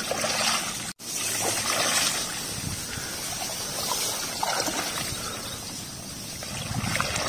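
Someone wading through shallow flood water and dense grass in rubber waders: water and vegetation swishing and trickling with each step. A brief cut to silence about a second in.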